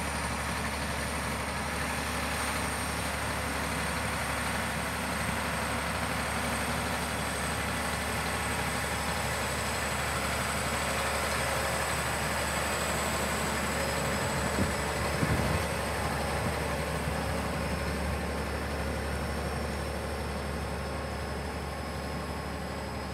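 Diesel engine of a John Deere 9000-series four-wheel-drive articulated tractor running steadily as it drives slowly past, a low engine note with a thin steady high whine over it. A few knocks come about fifteen seconds in, and the sound falls off near the end as the tractor pulls away.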